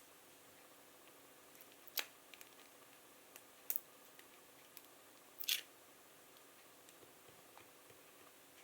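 A few faint, sharp clicks and taps from small laptop parts being handled while an MXM graphics card is removed, the loudest about five and a half seconds in, over a faint hiss.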